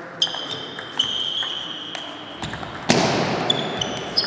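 Table tennis rally: a celluloid-type ball clicking off rubber-faced bats and pinging on the table top, a sharp hit every half second to a second, each with a brief high ring. A short loud burst of noise about three seconds in.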